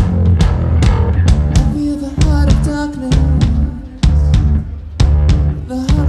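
Live rock band playing an instrumental passage: a drum kit keeps a hard-hitting beat under heavy bass and electric guitar from a double-neck Rickenbacker guitar-and-bass. The drums drop back briefly about two-thirds of the way through, then come back in.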